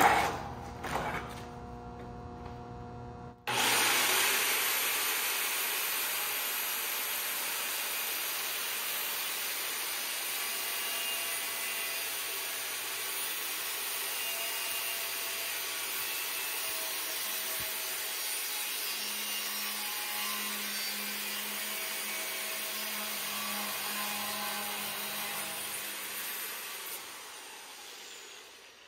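Angle grinder with a cut-off wheel cutting through the bottom of a steel table leg. The steady, hissing cut starts suddenly a few seconds in and fades away near the end.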